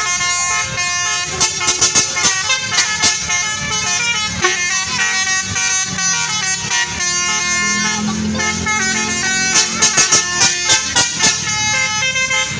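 A bus's basuri telolet horn playing a tune of stepped notes, with runs of quick short blasts about two seconds in and again near ten seconds.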